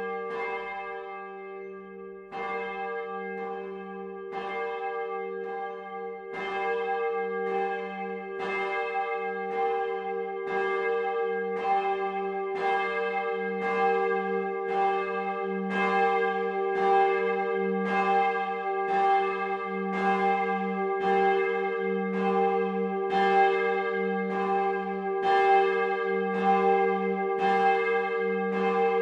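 A swinging church bell, rung by an electric ringing machine, starting to ring. Its first strokes come unevenly and grow louder as the swing builds, then settle into a steady rhythm of about one and a half strokes a second as the clapper strikes each side, each stroke ringing on into the next.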